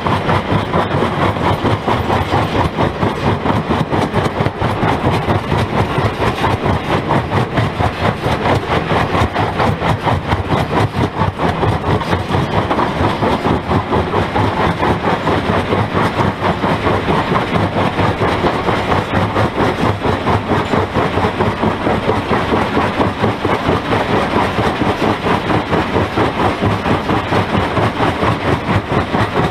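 Jaw crusher running, its grooved jaw plates breaking rock as stones drop into the crushing chamber: a loud, steady, rapidly pulsing clatter and grind.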